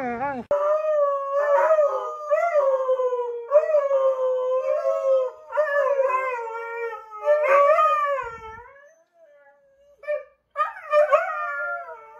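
Two huskies howling for their food: long, wavering howls that rise and fall in pitch. They break off about nine seconds in, then start again near the end.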